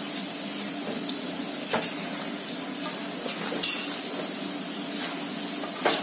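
Potato fries sizzling steadily in hot oil in a wok during their second, finishing fry. A wire-mesh skimmer stirs them and knocks against the pan a few times.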